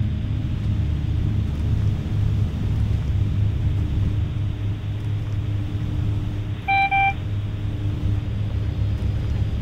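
A steady low rumble with a hiss over it. About seven seconds in come two short electronic beeps in quick succession.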